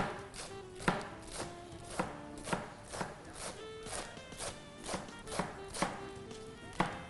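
Knife chopping lettuce on a plastic cutting board, in quick strokes about two a second, with faint background music underneath.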